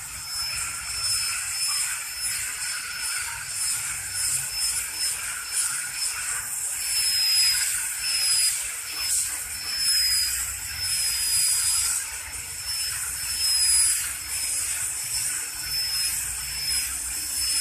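High-speed dental handpiece running against the teeth: a steady high whine over a hiss of air and water spray, its pitch dipping and shifting now and then.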